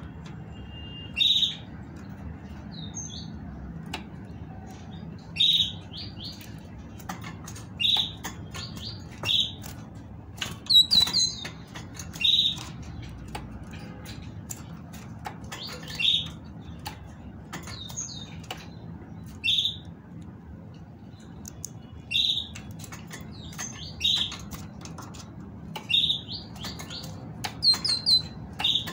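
Female great tit calling in short single notes, every second or two. Light clicks and wing flutters come from it hopping and flapping about a wire cage.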